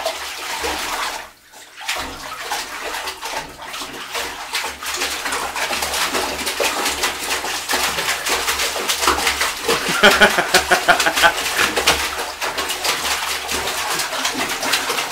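A boxer dog pawing and splashing in shallow bathwater in a bathtub: a quick irregular run of splashes and sloshing, with a short lull about a second in.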